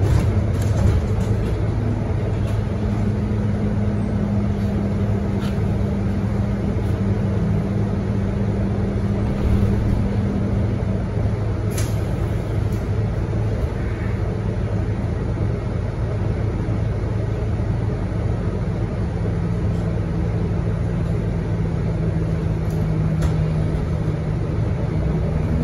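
Scania K230UB bus's rear-mounted diesel engine running at low revs in slow, stop-start traffic: a steady low hum heard from inside the passenger cabin.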